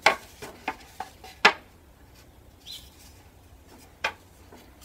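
Loose wooden boards knocking against each other and the wooden shelf frame as they are handled and laid in place: a few sharp separate knocks, the loudest about a second and a half in, and one more near the end.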